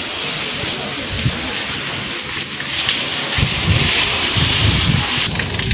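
Heavy rain pouring onto a waterlogged paved courtyard, a steady hiss. About three and a half seconds in, a low rumble joins it.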